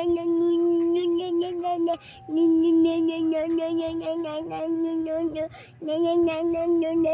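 A child's voice singing long notes held on one pitch, breaking off briefly twice, over short knocks of a knife chopping through a fish.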